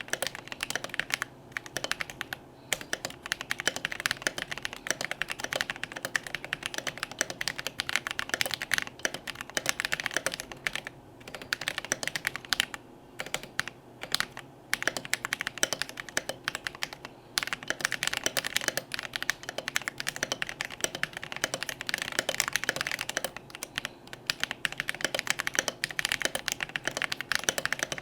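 Continuous fast typing on a Melody96 mechanical keyboard with Invyr Holy Panda V3 tactile switches on a brass plate and thick PBT double-shot OSA-profile keycaps. It is a dense run of keystroke clacks, broken by a few brief pauses.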